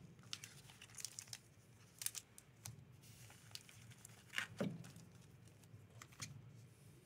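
Foil booster-pack wrappers crinkling and rustling faintly in scattered short bursts as the packs are handled and set down in stacks, a little louder about four and a half seconds in.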